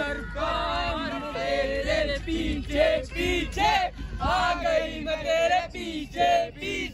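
Several young men singing a Hindi song together, their voices drawn out in long sung phrases.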